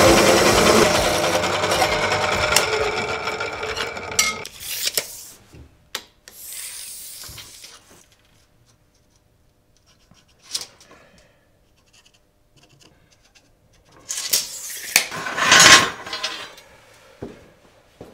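Metal-cutting cold saw running through a ribbed steel bar, its sound fading away over the first four seconds or so. After that come scattered short knocks and scrapes of hand work on a steel workbench, with a louder cluster of them around the fifteenth second.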